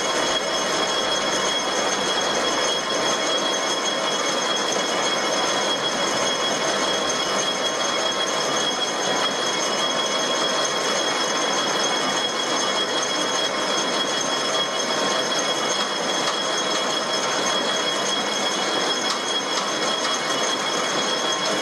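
Metal lathe running under power, taking a fine skim cut along a steel pipe: steady machine noise with a high, steady whine.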